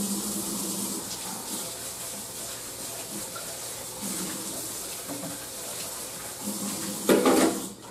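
Kitchen faucet running into a stainless steel sink as hands are washed under it: a steady hiss of water, with a brief louder sound about seven seconds in, and the water stops right at the end.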